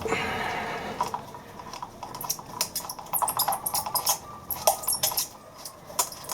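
Hand reaming tool being twisted in a hole in an enclosure box to enlarge it: an irregular run of short scraping clicks and squeaks.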